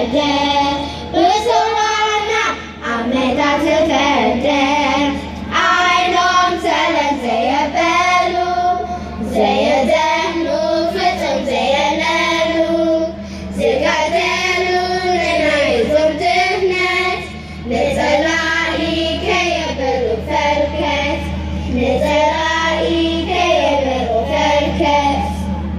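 A children's choir singing a song together, line after line with short breaks between phrases.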